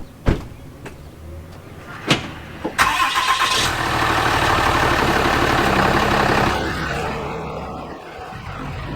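Two sharp knocks, then about three seconds in a Ram 2500's Cummins diesel engine starts up and runs loudly for a few seconds before settling lower.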